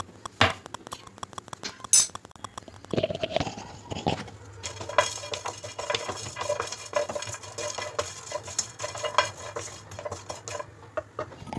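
Whole spices rattling and skittering in a hot, dry pan as a wooden spatula stirs and scrapes them around: dry-roasting whole garam masala spices, with no oil and no sizzle. A few separate knocks come first, then steady clatter from about three seconds in.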